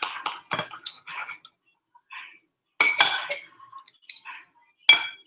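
Steak knife and fork clinking and scraping against a dinner plate as a steak is cut, in three clusters of sharp clinks that ring briefly. The loudest clink comes near the end.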